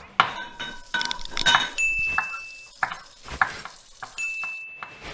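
Sound effects of an animated logo sting: a quick run of clicks, knocks and clinks with kitchen-like clatter, and two short held high tones, one midway and one near the end, before it cuts off suddenly.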